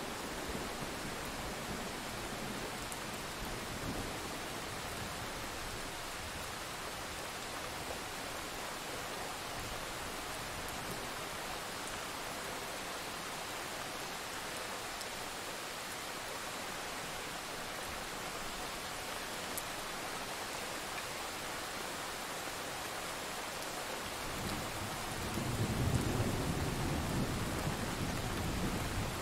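Steady rain falling, with a low roll of thunder building up and rumbling near the end.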